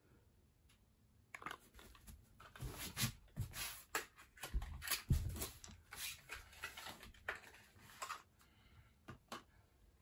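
Small cardboard box of peppermint oil and its bottle being handled and opened: a quick run of rustles, taps and clicks, with a few heavier thumps near the middle.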